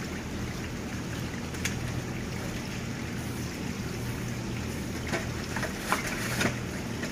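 Steady low hum of background machinery, with a few light clicks and knocks of plastic seedling trays being handled and set down on a table, mostly between about five and six and a half seconds in.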